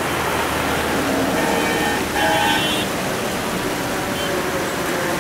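Steady noise of passing road traffic, with a low engine hum early and short vehicle-horn toots between about one and a half and three seconds in.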